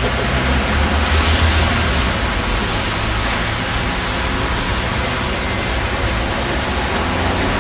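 Steady roar of road traffic with a strong low rumble.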